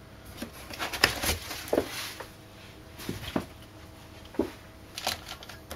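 A foam packing insert being lifted out of a cardboard box, with a series of short, irregular rustles, scrapes and squeaks of foam rubbing against cardboard.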